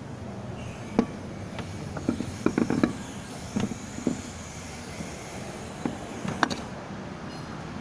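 A car running with a steady low rumble, with scattered knocks and clicks over it, a cluster of them about two and a half seconds in.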